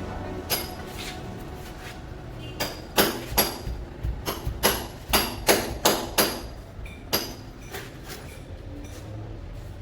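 A run of sharp, irregular hammer-like taps with a short ringing tail, bunched quickly together in the middle and sparser at either end. This is typical of ceramic wall tiles being tapped into place while tiling.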